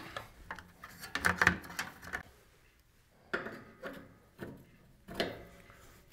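Hand handling of a CB antenna whip and its mount: rubbing and clattering about a second in, then after a short pause a few short knocks and scrapes as the antenna is set onto the mount and screwed in.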